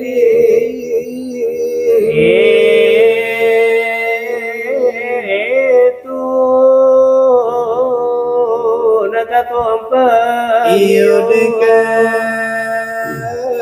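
Two men singing salawat dulang, the Minangkabau devotional chant, in long held notes that bend and waver between syllables.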